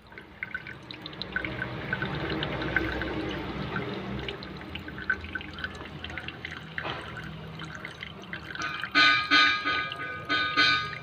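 Engine coolant trickling from a jug into a radiator filler neck, poured slowly so that air can escape from the cooling system. Near the end, a few loud, bright, tone-like bursts cut in over it.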